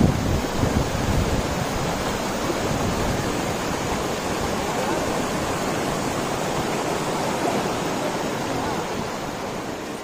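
Rushing water of a rocky mountain stream's rapids and a waterfall: a steady, even rush that fades out near the end.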